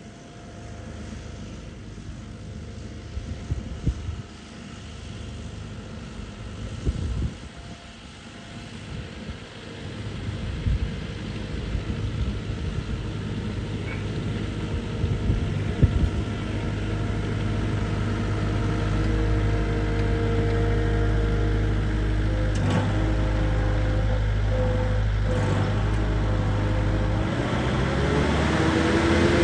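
Diesel engine of a Wacker Neuson compact track loader running and drawing steadily closer, with a few clanks along the way. Near the end the engine speeds up and its pitch rises.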